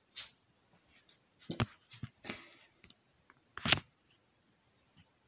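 Handling and movement noise: a few separate knocks, the loudest about three and a half seconds in, with soft rustling between them.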